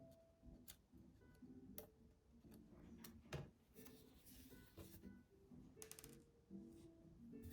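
Faint background music of soft, stepping notes, with scattered small clicks and taps over it.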